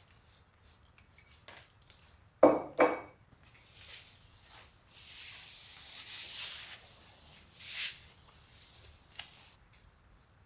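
Two quick squirts of a trigger spray bottle about two and a half seconds in, then a cloth rubbing along a painted mantelpiece shelf with a soft, steady swishing, and one more short swipe near the end.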